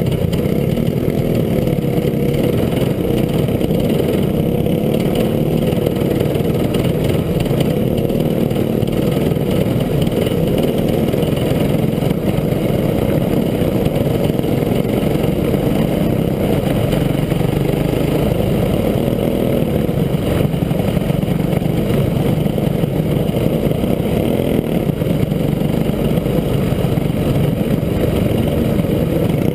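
Go-kart engine running hard, recorded close up on board the kart, its pitch rising and falling without let-up.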